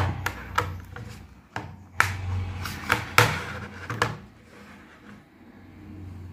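Hard plastic clicking and knocking as a black plastic folding screen-magnifier stand is slid shut, folded flat and set down, with rubber-gloved hands rubbing on the plastic. The clicks come in two clusters, a few in the first second and a sharper run between about two and four seconds in, then only light handling.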